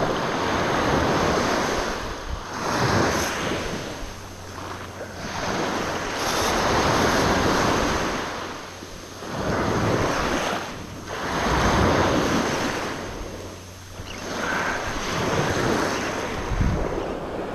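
Small surf breaking and washing up the beach in swells every few seconds, with wind buffeting the microphone.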